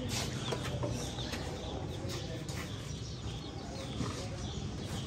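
Chickens clucking and chirping now and then, over a low steady background hum, with a few faint clicks.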